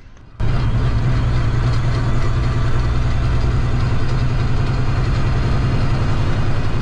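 International ProStar semi truck's diesel engine pulling steadily uphill in fifth gear, heard from inside the cab as a steady low drone. It starts abruptly about half a second in.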